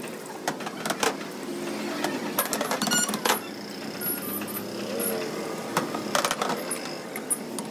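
Ice clinking and rattling inside a steel tumbler capped over a glass, shaken hard by hand to mix kulukki sarbath, in quick irregular clicks.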